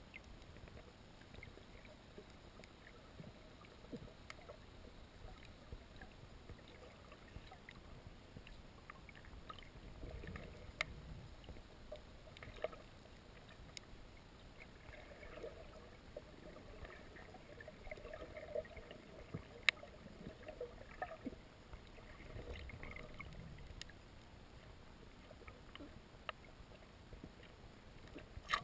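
Underwater sound picked up by a submerged camera: a faint, muffled low rush of water with scattered sharp clicks. A faint drone comes up through the middle stretch and fades again.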